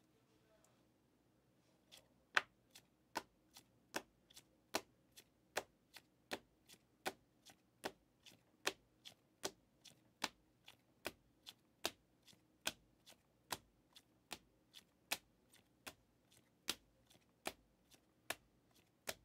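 2023 Panini Mosaic football trading cards being flipped through one at a time from a stack in the hand. Each card gives a crisp click, about two or three a second in an even rhythm, starting about two seconds in.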